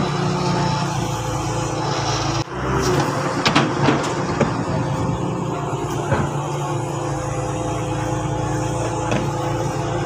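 Diesel engines of a tracked excavator and a dump truck running steadily. The sound drops out briefly about two and a half seconds in, and then comes a burst of clanks and knocks as earth and rocks are tipped from the raised truck bed.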